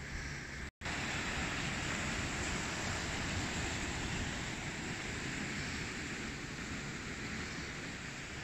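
Steady rush of wind on the microphone mixed with sea surf, broken by a brief dropout to silence just under a second in.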